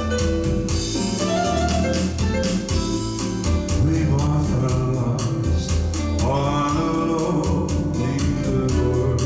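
Instrumental break of a bossa nova song played on a Yamaha PSR-S950 arranger keyboard: a keyboard melody over chords, a bass line and a steady programmed drum beat.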